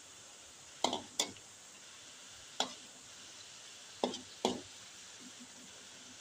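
A cooking utensil knocking sharply against a pan of stir-fried mustard greens and tempe, five clacks spread over about four seconds, over a faint steady hiss.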